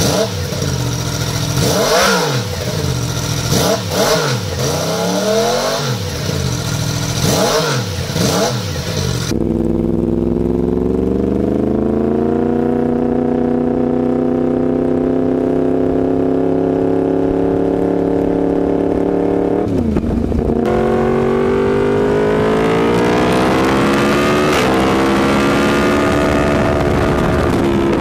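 Yamaha crossplane inline-four motorcycle engine, whose crankshaft fires the cylinders at uneven intervals. It is first revved standing in a quick series of about five blips, then, after a cut, heard accelerating under load while riding. The pitch climbs, holds, drops briefly at a gear change about two-thirds of the way through, and climbs again.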